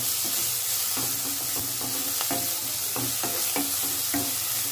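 Sliced onions, green chillies and ginger-garlic paste sizzling in hot oil in a non-stick kadai while a wooden spatula stirs and scrapes them round the pan. The steady frying hiss runs under irregular scraping strokes. This is the sauté stage, cooking off the raw smell of the ginger-garlic paste.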